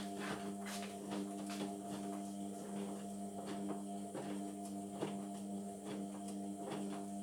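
Indesit washing machine on a Cotton 60 wash: the motor hums steadily as the drum turns, with the laundry knocking and clicking inside about twice a second. The motor hum cuts off suddenly at the end as the drum stops.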